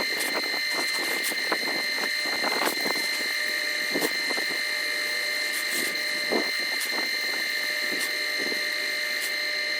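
Ridgid K60 sectional drain cleaning machine running: a steady high whine with irregular knocks and rattles.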